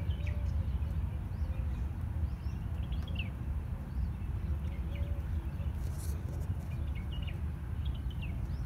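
Small birds giving short chirps here and there over a steady low outdoor rumble.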